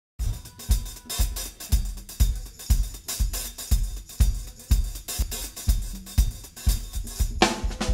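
Intro music: a drum-kit beat playing alone, with a kick drum about twice a second and hi-hat between the kicks. A cymbal crash comes near the end.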